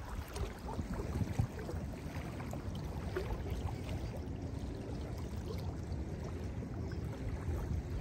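Small waves lapping and washing onto a sandy lakeshore: a soft, steady wash with faint little splashes.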